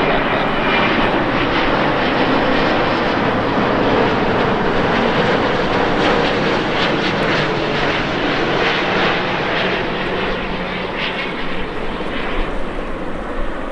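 Airbus A350-900 jet airliner passing close on landing: loud, steady jet engine and airframe noise that eases off in the last few seconds.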